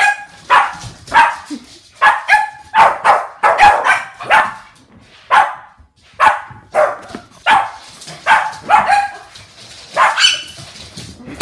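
Shih tzus barking in excited play, short sharp barks coming in quick runs of about two a second with brief pauses.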